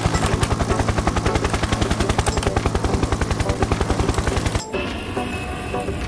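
Helicopter rotor blades chopping: a fast, even beat of about a dozen pulses a second that stops about four and a half seconds in, when a different, noisier sound takes over.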